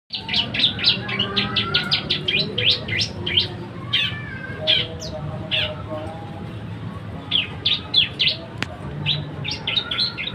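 A songbird chirping in rapid runs of short, sharp, high notes, several a second. The notes come in bursts, with a sparser stretch around the middle. A steady low hum sits underneath.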